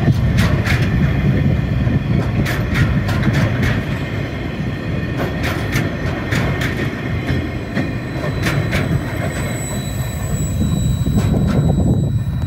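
Empty log wagons of a freight train rolling past on the rails: a steady low rumble broken by clusters of sharp wheel clicks every two or three seconds, as the wheelsets of each wagon pass.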